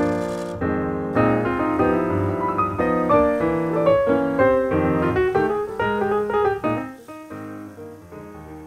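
Background piano music, a steady run of notes that grows quieter about seven seconds in.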